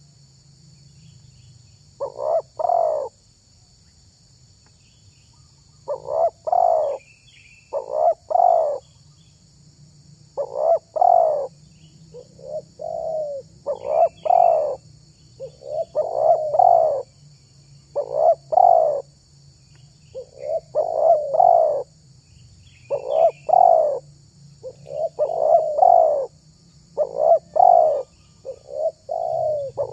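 Spotted dove (tekukur) cooing: repeated phrases of two or three coos, one about every two seconds, with a pause of a few seconds near the start.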